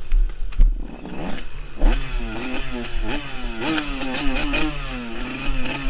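Dirt bike engine being ridden on a rough trail, its revs rising and falling over and over as the throttle is worked, with a few sharp knocks and clatter from the bike over the ground.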